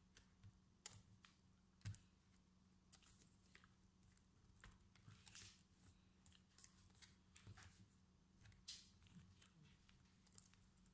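Faint, irregular clicks and scrapes from hands handling an opened laptop's chassis and lid, over a low steady hum.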